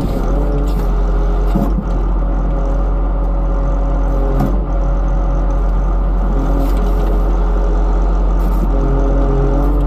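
Log skidder's diesel engine running steadily under load as the machine drives, heard close up from the operator's seat. Two brief knocks break it about two and four and a half seconds in.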